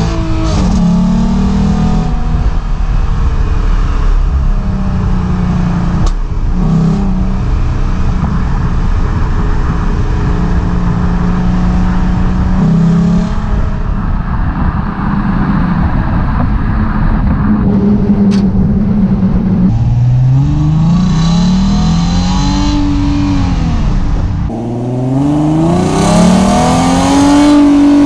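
V6 Ford Mustang exhaust while driving, engine pitch holding steady between gear changes and rising in two revving pulls near the end, mixed with wind noise; through the middle it turns muffled as the GoPro's wind microphone takes over. About three-quarters of the way in it switches to a clearer, fuller exhaust sound from a headphone microphone taped next to the tailpipe.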